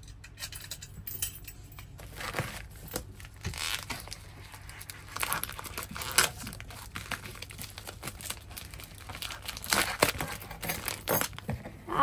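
Plastic packaging and bubble wrap crinkling and rustling as hands rummage through a cardboard parcel and pull out a pink mailer bag, in irregular crackles with a few sharper rustles.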